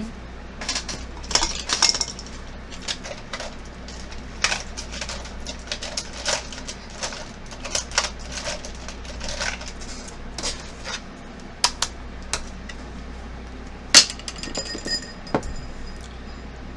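Irregular small clicks and clinks of makeup products and tools being handled and set down: cases, lids and brushes knocking on a hard surface. The sharpest click comes about two-thirds of the way through.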